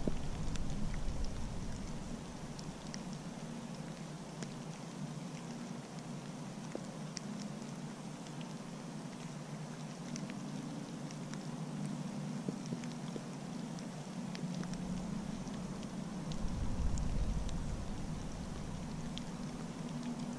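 Light rain falling on a small woodland pond, many scattered drops ticking on the water surface over a low rumble. The rumble swells briefly about three quarters of the way through.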